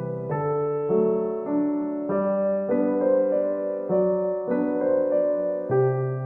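Background instrumental music: a keyboard playing held chords over a bass line, the chords changing every half second or so.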